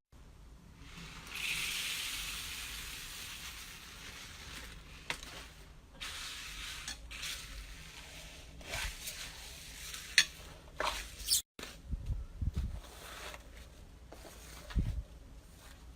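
Slime being squeezed and worked by hand: a crackling hiss for a couple of seconds near the start, then scattered wet clicks and pops, and a few soft low thuds near the end.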